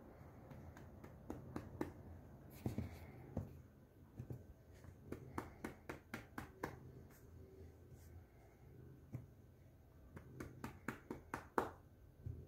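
A hand giving a cat light, quick pats on its body, several in a row with short pauses between, the slaps on the fur sounding as soft sharp smacks.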